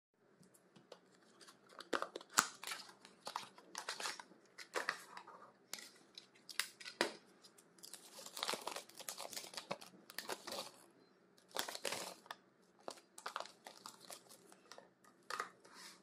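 Unboxing by hand: a small cardboard box opened and a paper instruction leaflet rustling and crinkling, with small taps and clicks as the plastic module is handled. The sounds come in irregular bursts.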